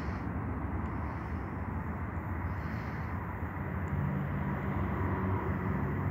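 Steady low rumble of distant vehicles, with a low engine hum coming in about four seconds in.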